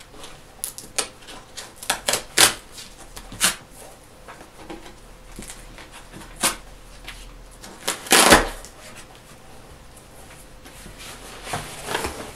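Cardboard shipping box being opened by hand: scattered scrapes and clicks of fingers working the cardboard, with one louder rasp about eight seconds in as the box gives way, and the lid being lifted open near the end.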